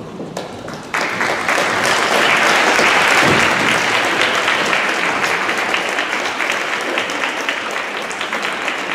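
Audience applauding as the performers walk onto the stage. The clapping starts suddenly about a second in, swells, then slowly thins out.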